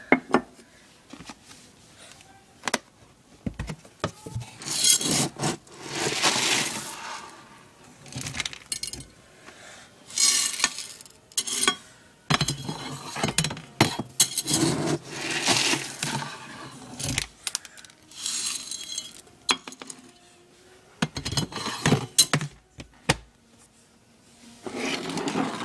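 Dry cat kibble being scooped and poured into a food bowl, rattling and clinking in repeated bursts of a second or two with short pauses between.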